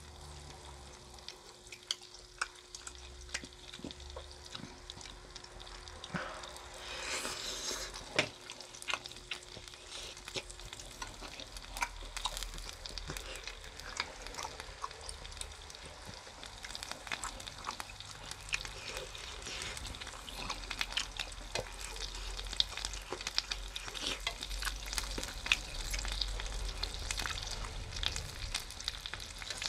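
Chicken skewers sizzling as they grill, with scattered sharp clicks and a louder rush of sizzle about seven seconds in.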